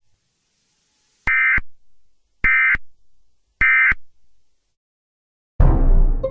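Emergency Alert System end-of-message: three short bursts of the buzzy digital data tones, about a second apart, signalling that the alert is over. Near the end a loud sudden sound with low energy begins as the program resumes.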